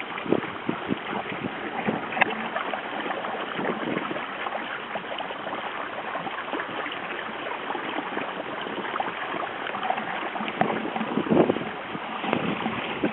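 Water splashing and gurgling along the hull of a sailing proa under way, an irregular patter of small splashes that gets a little louder about eleven seconds in.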